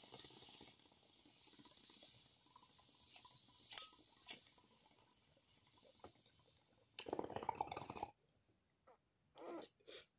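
Quiet room tone, nearly silent, with a few faint clicks and, about seven seconds in, roughly a second of soft breathy noise.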